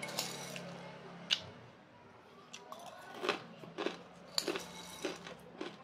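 Eating close to the microphone: chewing, with a run of short sharp clicks from about halfway in as a metal spoon knocks against the bowl.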